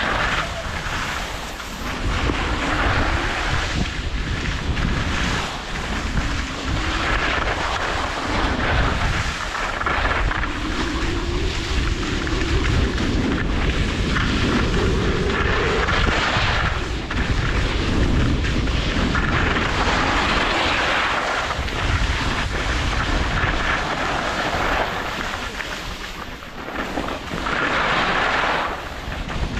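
Wind buffeting the microphone of a camera carried by a skier moving downhill, a heavy rumble, with the hiss and scrape of skis on hard-packed snow rising and falling every few seconds.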